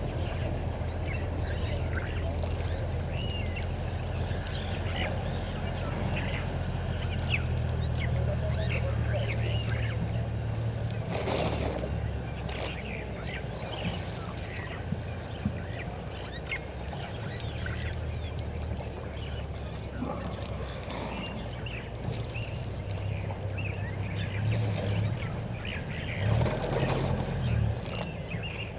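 Bush ambience at a waterhole: a high-pitched call repeating about once a second, with scattered short animal chirps over a low steady hum.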